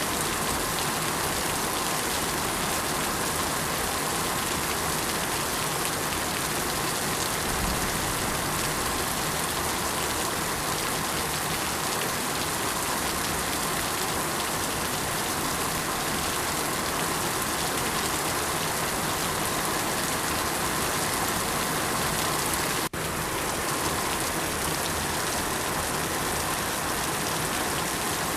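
Steady rain falling, an even hiss of many drops, with a split-second dropout about three-quarters of the way through.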